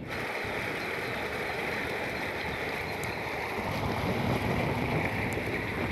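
Steady road and wind noise of a moving vehicle, its low rumble growing stronger about halfway through.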